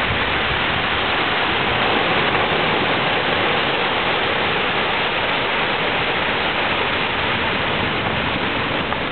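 Surf breaking and washing up a beach: a steady rushing noise.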